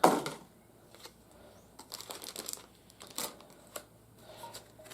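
Light clicks and rustling of a small cardboard blind box and its plastic-bagged toy parts being handled and opened. There is a quick cluster of ticks about two seconds in, then a few single clicks.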